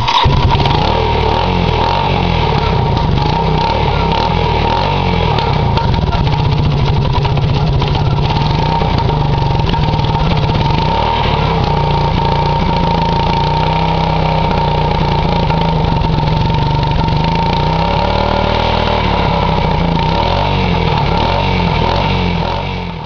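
Yamaha YTM225DX's single-cylinder four-stroke engine catching right at the start and then running steadily at idle. This is its first run after a rocker arm replacement and timing reset, and it keeps running.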